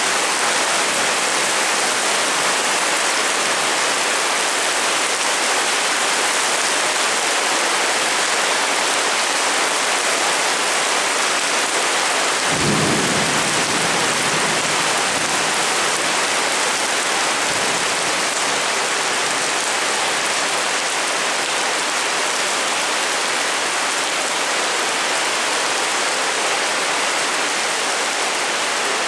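Heavy rain pouring steadily onto a paved street, a dense even hiss and splash. About halfway through a brief low rumble swells and fades, with a fainter one a few seconds later.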